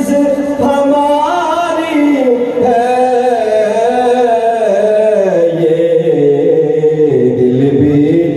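Male voice singing a naat unaccompanied, in long held notes that slide slowly up and down.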